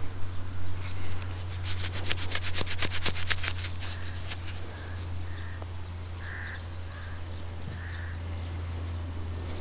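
Gloved fingers rubbing soil off a copper half penny: a fast scratchy rubbing for about two seconds. After it, crows caw faintly several times over a steady low hum.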